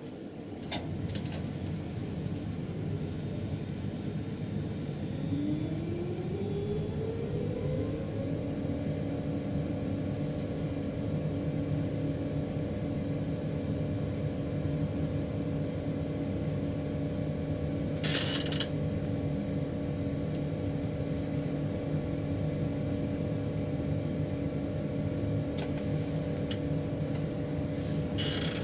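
Electric motor heard from inside a crane cab, spinning up with a rising whine over a few seconds, then running with a steady hum over a low rumble. A short burst of hiss comes about 18 seconds in and again near the end.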